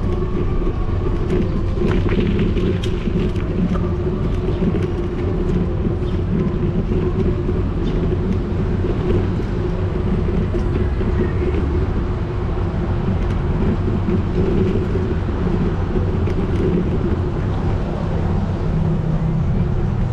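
Steady low rumble of a bicycle rolling over brick paving, picked up by the camera riding on the bike.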